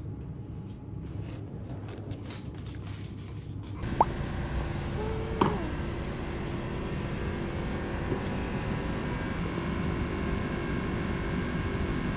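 Suitcase wheels rumbling over a hard floor with a few clicks of the luggage handles. About four seconds in this gives way to steady street noise of traffic, with two short squeaks.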